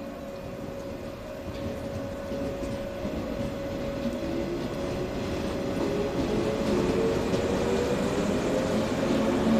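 JR 115 series electric train pulling away from the platform: its resistor-controlled traction motors whine, the pitch climbing as it gathers speed and the sound growing louder as the cars pass close by.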